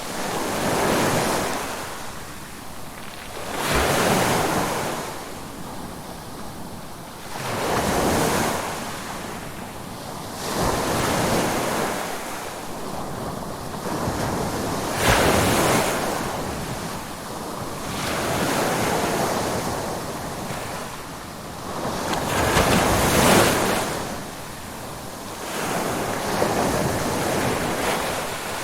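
Ocean surf, waves washing in one after another, each surge swelling and falling back about every three to four seconds.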